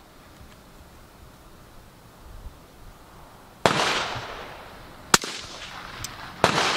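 A single shot from a 6.5 Creedmoor Q Fix bolt-action rifle, which has a suppressor on its muzzle, fires about three and a half seconds in. Its report echoes away over a second or so. Sharp metallic clicks follow as the bolt is worked to cycle the action.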